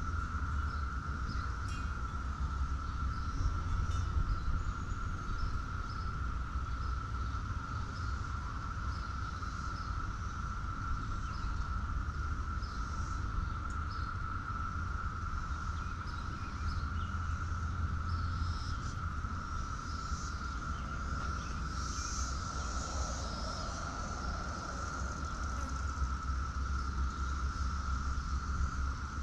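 Insects, crickets or a similar chorus, giving a steady, unbroken high drone, with scattered short high chirps and a constant low rumble underneath.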